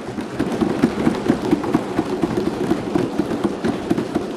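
Many people thumping their desks in approval, a dense, loud, irregular patter of thuds on wooden desks, in the way that members of a legislative assembly applaud.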